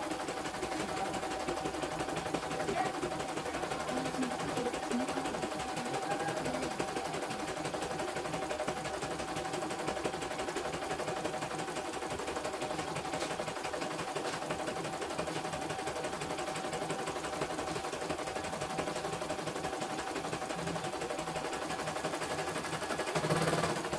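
CNY E900 computerised embroidery machine stitching a design: a steady, rapid clatter of the needle over a constant motor whine, briefly louder near the end.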